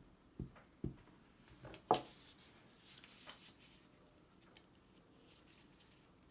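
Paper-craft handling at a table: a few soft knocks about half a second apart as a glue stick is pressed onto the end of a paper strip, then a sharp crackle about two seconds in and a couple of seconds of paper rustling as the strip is bent into a loop.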